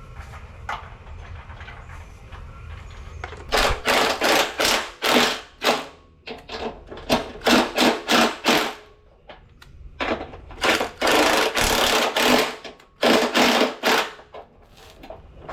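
A loud, rapid mechanical rattle coming in repeated bursts, some short and some lasting a second or two, starting about three seconds in and stopping near the end.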